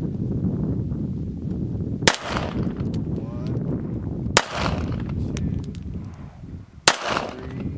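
.380 ACP handgun fired three times in slow aimed fire, single sharp shots about two and a half seconds apart, over a steady low rumble.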